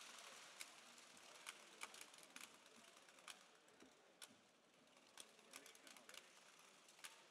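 Faint, sharp ticks of hockey trading cards being handled and flipped through, roughly one or two a second, over a low steady hiss.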